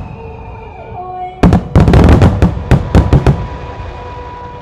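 Starmine fireworks: a rapid string of about a dozen sharp bangs from firework shells bursting overhead, starting about a second and a half in and lasting about two seconds, then echoing away.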